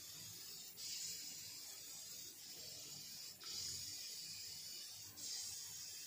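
Faint rubbing of hands rolling and patting a mashed-potato kabab between the palms, with a soft hiss that swells in about every two to three seconds.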